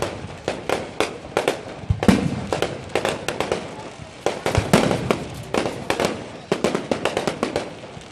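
Fireworks display: a rapid run of sharp crackling reports with several heavier booms of shells bursting, about two seconds in and again near the middle.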